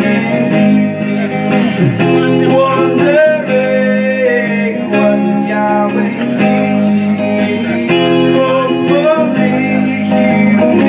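Live band music led by guitar, the song played on without sung words.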